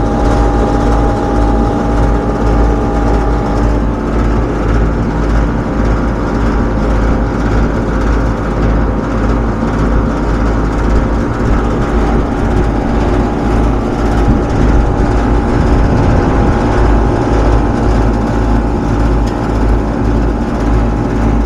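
Steady hum of running rooftop commercial HVAC equipment, with a couple of constant tones over a low rumble.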